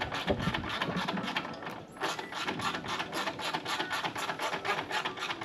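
Hand ratchet clicking rapidly as a bolt is run down and tightened, with some handling noise of tools and metal parts in the first second or two.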